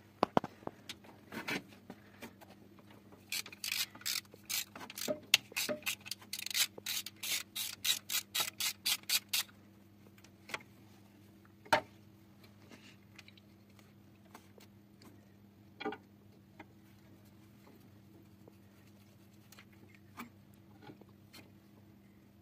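Socket ratchet clicking in quick runs, about four clicks a second, as the engine's timing-chain tensioner is unscrewed. After that, a few isolated light metal knocks as the parts are handled.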